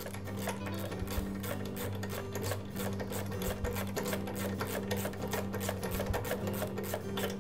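Ratchet wrench clicking in quick repeated runs as a spark plug is turned into a small mower engine's cylinder head, over background music with steady low notes.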